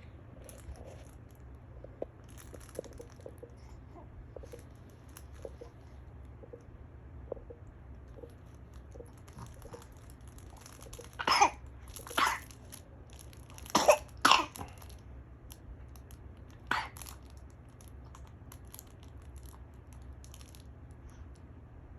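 A young girl with a cold coughing: five coughs near the middle, two close together and then a third a couple of seconds later, two more in quick succession, and a last one a couple of seconds after that.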